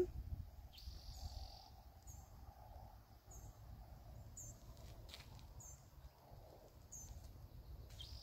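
Birds calling: a short high chirp repeated about once a second, with a brief buzzy trill about a second in, over a low rumble of wind or handling noise.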